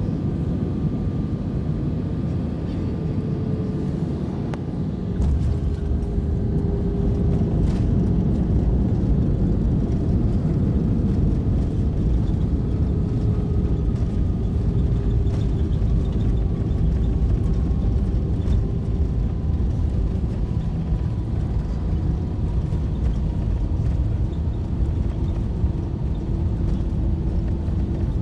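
Cabin noise of an Airbus A319 landing: engine and airflow noise with a few faint engine tones slowly falling in pitch. About five seconds in, a deep rumble comes in suddenly as the wheels touch down and the ground spoilers rise. It keeps up through the rollout on the runway.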